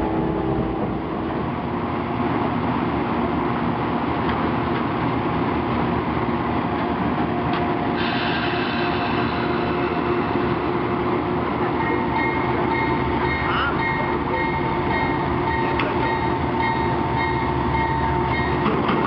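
Passenger train rolling at speed, heard from on board as a steady rumble. About eight seconds in, the sound changes to an idling train standing at a station platform, with steady whining tones starting a few seconds later.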